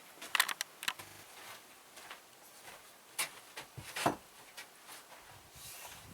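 A few scattered sharp knocks and clicks. There is a quick cluster about half a second in, then two louder single knocks about three and four seconds in, at the start of taking up an old shed floor.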